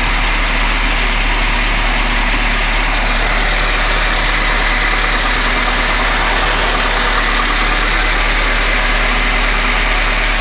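Robur truck's air-cooled engine idling steadily, heard up close at the open engine bay with its belt-driven cooling fan turning.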